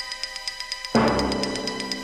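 Music with a fast, even ticking beat and a heavy drum hit about a second in that rings on.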